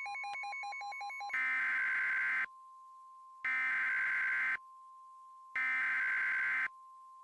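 Steady NOAA Weather Radio 1050 Hz warning alert tone with weather-radio alarms sounding over it, announcing a flash flood warning. A rapid pulsing beep plays for about the first second. Then come three long buzzy beeps, each about a second long with about a second between them, and the steady tone cuts off at the very end.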